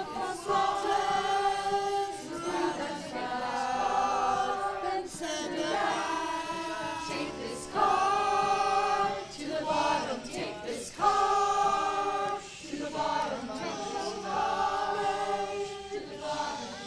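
Mixed choir of men and women singing held chords, phrase after phrase, each a few seconds long with a short break before the next.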